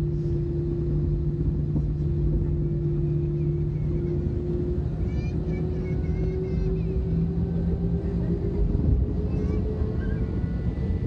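Airbus A320 jet engines running with a steady low rumble and a hum that slowly creeps up in pitch. Faint voices can be heard under it in the middle.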